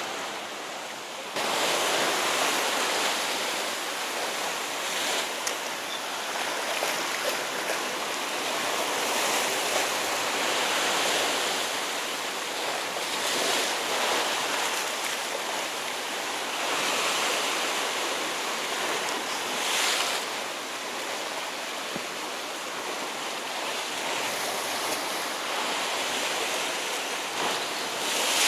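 Sea waves washing against shore rocks, the surf swelling and easing every few seconds, with wind buffeting the microphone.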